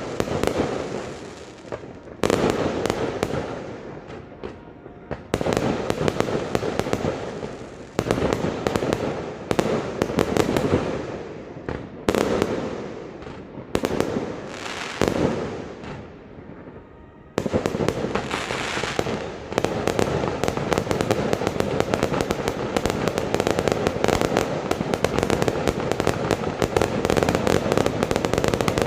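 Fireworks going off in a series of volleys: rapid crackling bangs that swell and fade, then merge into one continuous dense crackle for the last third.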